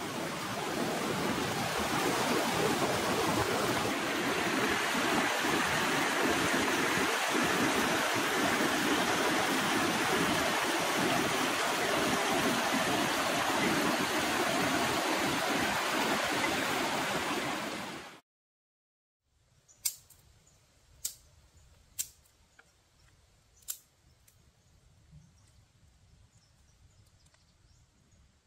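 Stream water rushing in a steady, even hiss that cuts off suddenly about eighteen seconds in. After a moment of silence come four sharp cracks, spaced roughly a second apart, against a quiet background.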